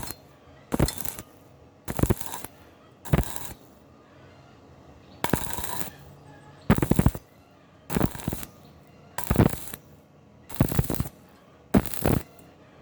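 Electric welding arc struck in short crackling bursts, about one a second, each lasting under half a second, with one longer burst about five seconds in: stitch welding to fill a cavity in iron.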